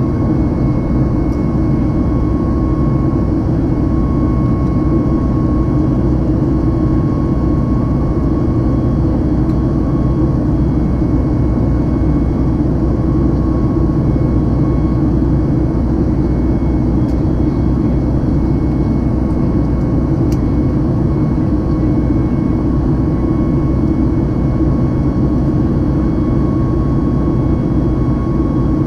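Steady cabin noise of a Boeing 737 MAX climbing out, heard from a window seat over the wing: a deep rumble of airflow and its CFM LEAP-1B engines, with a faint steady whine above it.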